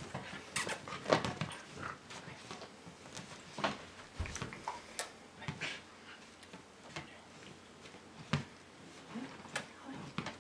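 A dog moving about on an inflatable balance donut: irregular light taps, clicks and scuffs of its paws and claws on the ball and its base, the loudest about a second in.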